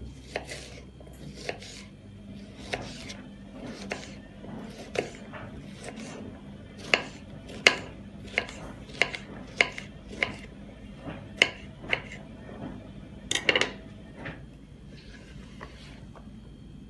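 Knife chopping fresh broad bean pods on a bamboo cutting board, a sharp cut every half second to a second, with a couple of louder strokes about thirteen seconds in. Near the end, a soft rustle of the chopped pieces being handled.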